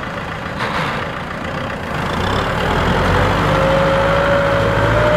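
Kubota M6040SU tractor's four-cylinder diesel engine running, getting louder about two seconds in as it works. A thin whine joins it past the middle and rises slightly toward the end.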